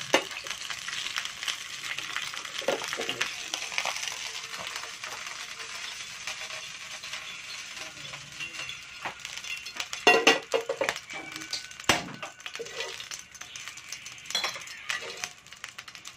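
Hot oil sizzling in a frying pan as a fried fish is lifted out with a wooden spatula, then a run of sharp clinks and knocks of cookware on the gas stove about ten to twelve seconds in, with a few lighter clinks after.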